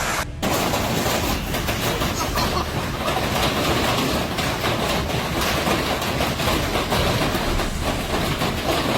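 Hail pelting down hard in a dense, steady clatter of many small impacts.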